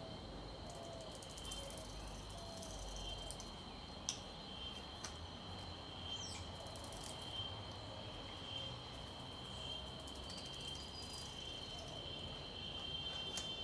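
Garden ambience: a steady high insect trill runs throughout, with a few faint low bird calls in the first seconds and occasional brief clicks.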